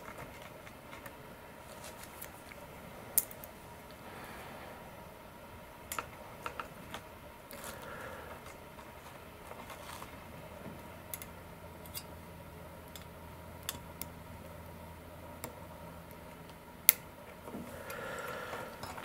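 Scattered small metallic clicks and ticks from hemostat forceps and a helping-hands alligator clip as fine servo wires are handled at a connector, with two sharper clicks, one about three seconds in and one near the end.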